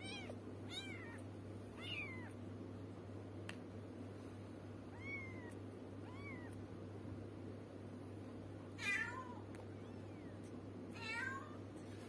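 Small kitten mewing repeatedly, about seven short high mews, with the two loudest near the end.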